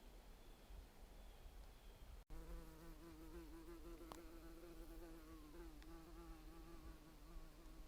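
A flying insect buzzing close by, a faint, steady, slightly wavering hum that starts just after a brief cut about two seconds in and carries on to the end.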